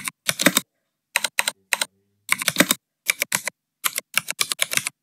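Typing on a computer keyboard: quick runs of keystrokes in short bursts, broken by brief pauses.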